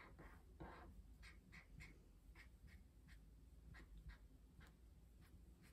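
Faint, quick back-and-forth strokes of a crayon colouring in on paper, about three strokes a second.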